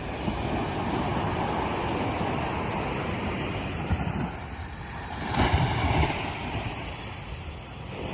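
Ocean surf rolling onto a beach: a continuous wash of waves, with one wave breaking louder about five and a half seconds in.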